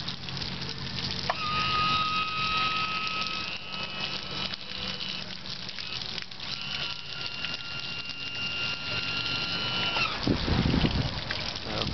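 Honda BF20 two-cylinder four-stroke outboard idling with a steady low hum, while its electric power tilt/trim motor whines twice in steady, even runs of a few seconds each, the second slightly higher in pitch. A brief low thump comes near the end.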